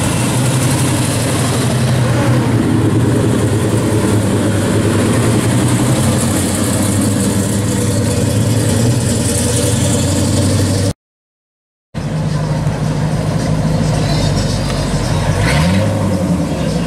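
Classic V8 muscle cars idling and pulling past one after another at low speed, a steady low exhaust rumble. The sound cuts out for about a second around eleven seconds in, and near the end one engine revs up briefly.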